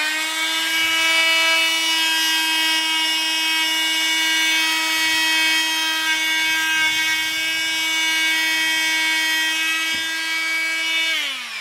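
Bosch oscillating multitool with a sanding pad, run at its top speed setting of 6 while sanding wood: a steady, high buzzing hum. It winds down with falling pitch near the end as it is switched off.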